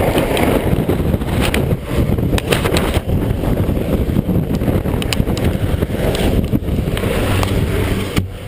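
A helicopter hovering low overhead, its rotor downwash blasting wind across the microphone in a heavy, buffeting rush over a low engine rumble, with scattered sharp crackles.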